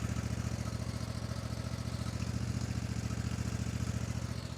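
Kohler 26 hp V-twin engine on a Scag Freedom Z zero-turn mower running steadily with an even pulse, freshly started to circulate new oil after an oil change. It gets a little quieter near the end.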